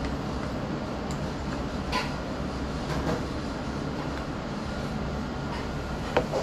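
Steady low background rumble, with a few light clicks and clinks about two and three seconds in and again near the end.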